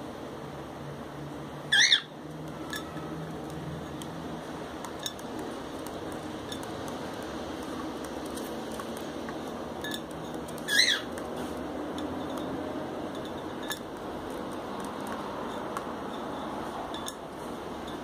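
Cockatiel giving two short, loud rising whistle calls about nine seconds apart, with a few faint taps in between.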